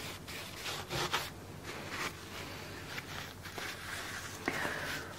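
A cloth rubbing and rustling faintly as resin drips are wiped off a wooden mould, with a few brief soft scrapes as it is handled and set down.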